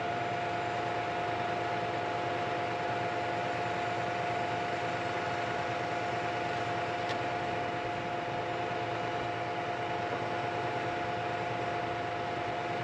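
A vehicle engine idling: a steady whine of several tones over a constant fan-like hiss, settling to a fixed pitch right at the start after a short drop.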